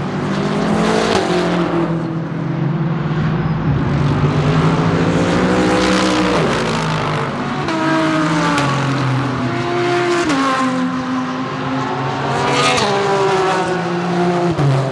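Several GT race cars passing in succession, their engines rising and falling in pitch as they brake, shift and accelerate through a corner, with one car's note taking over from the next every few seconds.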